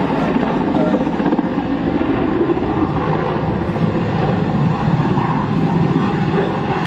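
Helicopter running, a loud and steady mix of rotor and engine noise.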